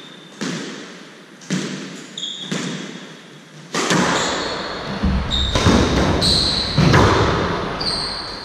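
Squash rally: a squash ball struck by rackets and cracking off the court walls about every second, each hit ringing in the enclosed court. Sneakers squeak on the wooden floor between shots, and from about halfway through the hits come faster with heavier thuds.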